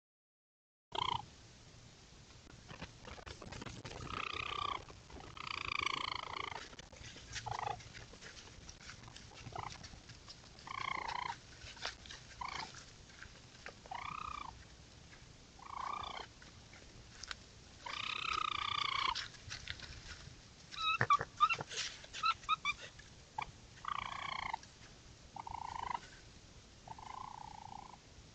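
Raccoons calling: a dozen or more short, wavering, high-pitched calls, each well under a second, spaced a second or two apart. Scattered clicks and rustles come between them, with a burst of them a little past the middle.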